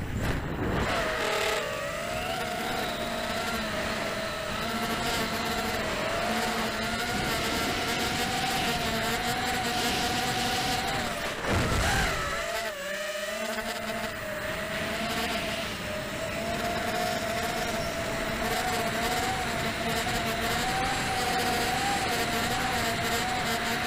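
Brushless motors and propellers of a ZMR FPV quadcopter whining in flight, the pitch wavering up and down with throttle, with wind rush on the onboard camera's microphone. A brief louder rush about twelve seconds in.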